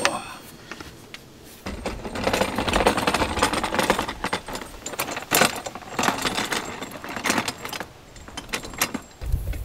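An empty garden utility cart with a plastic tub and a metal frame rattling and clattering as it is wheeled over the ground, starting about two seconds in.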